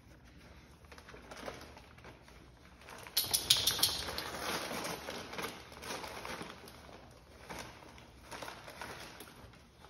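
Gift wrapping paper crinkling and tearing as dogs dig into a wrapped present. A sudden loud burst of crackling comes about three seconds in and dies away over a few seconds, followed by smaller rustles near the end.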